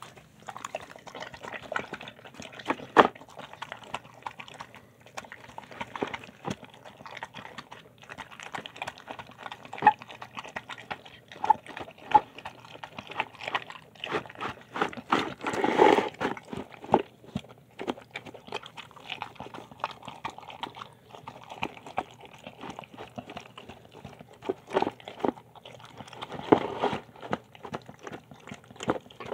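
A dog eating a wet home-cooked meal of chicken, beans, lentils and rice from a bowl: irregular wet chewing, smacking and clicks of mouth and teeth, loudest in a cluster about halfway.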